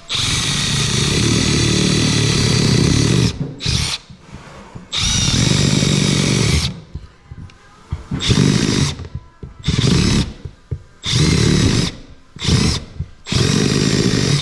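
A power tool running in about eight bursts, the first lasting about three seconds and the rest shorter, stopping and starting as it cuts a notch.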